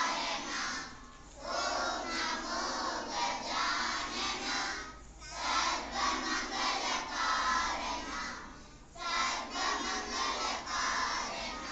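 A large group of children's voices in unison, in phrases of a few seconds separated by short pauses.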